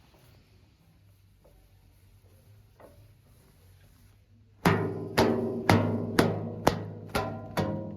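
Music: after a quiet stretch, a run of loud drum hits with pitched tones starts a little past halfway, about two hits a second.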